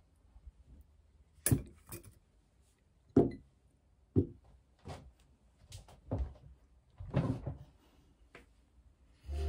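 Ceramic bowls and tableware set down on a table: a string of short, separate knocks and clinks, the loudest about one and a half and three seconds in.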